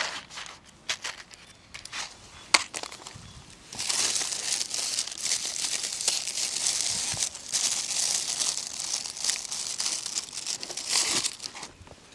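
Crinkly material being crumpled and handled: a few sharp clicks at first, then continuous crinkling for about seven seconds that stops shortly before the end.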